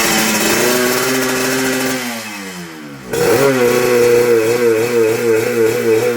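Yamaha RX Special two-stroke motorcycle engine with a PWK carburettor, tuned for a 'ngorok' (snoring) note, being revved. The revs are held, fall away about two seconds in, then are picked up sharply again about three seconds in and held with a wavering pitch.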